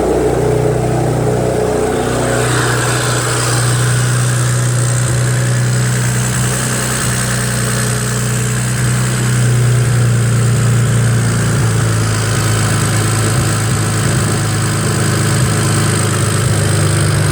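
BMW 335i's straight-six engine idling steadily, which the owner thinks sounds like a bit of a misfire.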